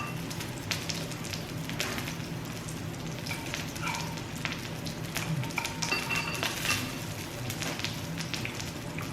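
Pork belly sizzling on a Korean barbecue grill, with fat crackling and spitting steadily.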